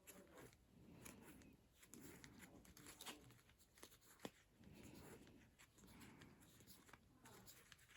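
Faint rustling and soft clicks of playing cards being handled and spread out, close to silence.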